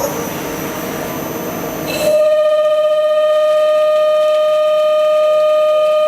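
Metal lathe running with a steady mechanical noise; about two seconds in, a loud steady high whine with overtones sets in and holds, as the turning tool in the AKKO holder cuts.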